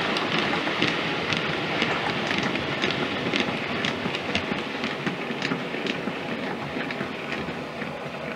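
H0-scale model freight train rolling past on its track: a steady rolling rush of small wheels with quick irregular clicks, a few a second, from the rail joints. It slowly fades as the last wagons go by.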